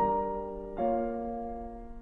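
Slow solo piano music: a chord struck at the start and another just under a second in, each left to ring and fade.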